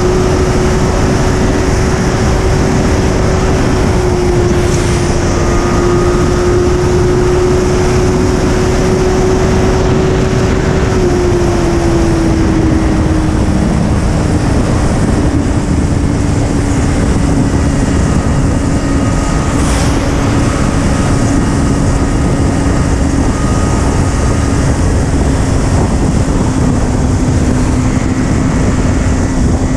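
Honda sport motorcycle cruising on the highway: steady engine note under heavy wind rush, the engine pitch easing down a little about twelve seconds in and then holding steady.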